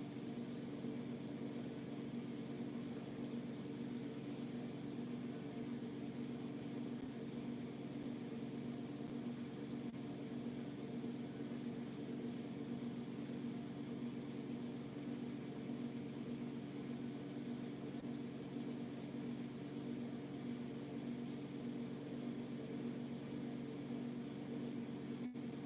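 Steady low hum of a small motor or fan running without change; no chirping.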